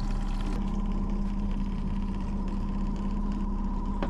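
Honda four-stroke outboard motor running steadily at slow trolling speed, a constant hum. A single light click near the end.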